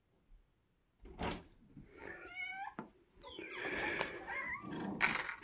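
A cat meows once, briefly, about two seconds in, after a thump about a second in. Then a door is opened, with a click from the knob and rustling.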